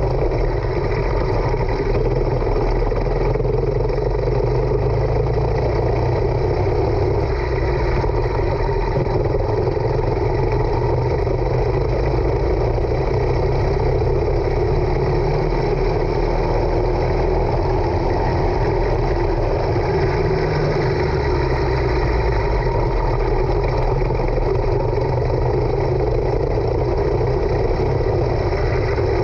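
Racing kart engine running steadily at racing speed, heard up close from on board the kart as it laps the circuit.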